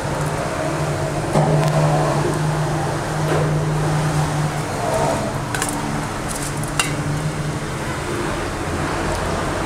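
Steady mechanical hum, with a few sharp metal clinks of a ladle against a stainless steel pot as stewed lamb and sauce are ladled out.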